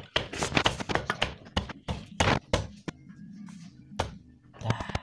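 Irregular sharp metallic taps and clicks of tools and parts being handled on a Suzuki Satria FU's cylinder head during engine reassembly, with a low steady hum for about two seconds in the middle.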